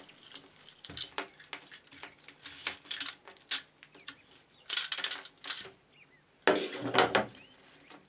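Plastic food-dehydrator trays clacking and being handled while dry, brittle bell pepper pieces rattle out onto a cloth, with a mesh drying sheet rustling. The noise is a run of light knocks and clicks, with two louder bursts of clatter about five and seven seconds in.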